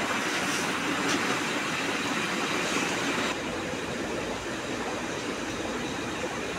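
Steady rushing background noise with no clear single source. About three seconds in it changes suddenly, losing its hiss and gaining a low rumble.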